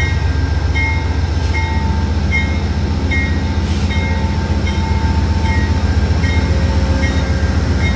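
GE P42DC diesel locomotive standing with its V16 diesel engine running, a steady low rumble. A short high beep repeats about every two-thirds of a second over it.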